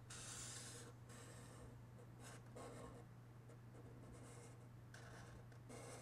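Felt-tip marker drawing on a sheet of paper on a wooden table, a series of short, faint strokes.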